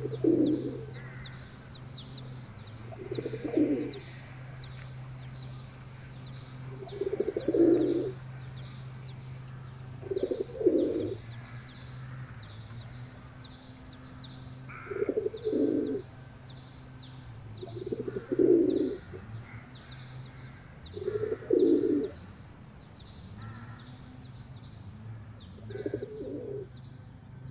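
Rock dove (feral pigeon) cooing, eight separate low coos spaced a few seconds apart. Under it, a rapid high chirping repeats about three times a second, with a steady low hum.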